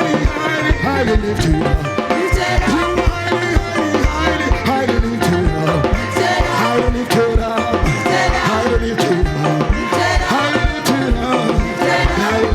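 Praise and worship music with a steady drum beat, a moving bass line and a gliding melody over it.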